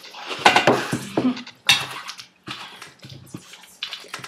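Cutlery and dishes clattering in irregular knocks and clinks during frenzied eating, with a few short vocal sounds about a second in.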